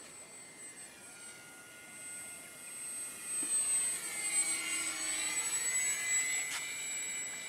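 Brushless electric motor and propeller of an RC electric glider (2212 2200kv outrunner, 6x4.5 prop) whining steadily in flight, growing louder from about three seconds in as the plane passes close, its tones dipping and rising again as it goes by.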